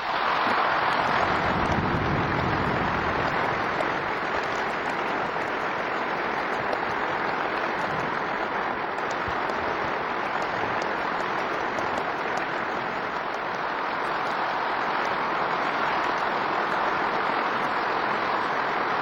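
A large hall full of people applauding steadily and at length, starting abruptly, with the recording played at double speed.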